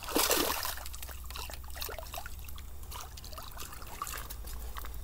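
A hooked largemouth bass splashing and thrashing at the surface close to the bank, loudest in the first half second, followed by smaller irregular splashes and water dripping.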